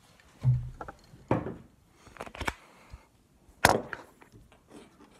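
Handling knocks: a drinking glass and other objects knocked and set down on a table, a string of short sharp clunks with a dull thump about half a second in and the loudest knock about three and a half seconds in.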